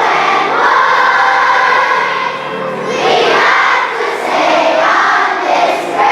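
A large crowd of schoolchildren and adults singing a school song together, with brief dips between sung phrases.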